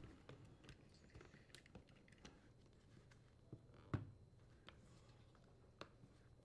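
Faint clicks and knocks of a plastic dishwasher circulation pump housing being handled and pressed into the sump, with one sharper knock about four seconds in; otherwise near silence.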